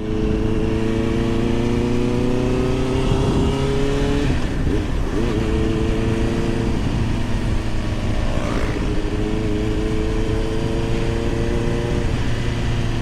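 Motorcycle engine heard through a helmet-mounted microphone while riding, its pitch climbing steadily under acceleration and dropping at gear changes about three times, with a constant rush of wind noise over the microphone.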